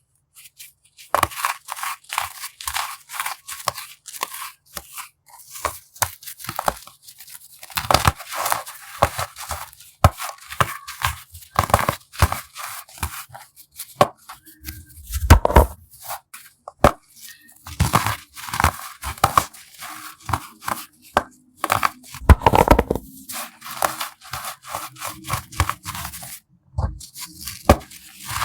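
Baking soda being crushed: a dense, irregular run of crisp crunches and crumbles, with a couple of heavier, deeper crunches about halfway through and again about three quarters through.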